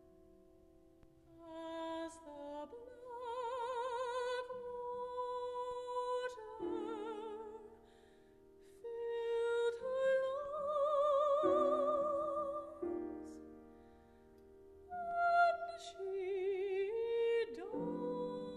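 A female operatic voice sings long, high notes with wide vibrato over grand piano accompaniment, in phrases that drop back to quiet piano alone about eight and fourteen seconds in.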